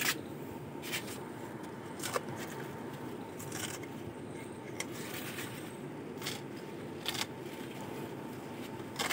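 Zucchini leaves and stalks being handled and cut away while pruning damaged leaves: scattered short crackles and clicks, about one every second, over a steady low background noise.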